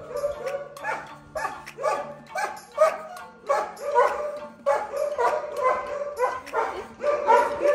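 A dog barking over and over in short barks, about two a second.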